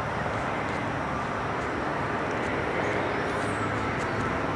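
Douglas C-47 Dakota passing overhead, the steady drone of its twin radial piston engines under a wash of outdoor noise.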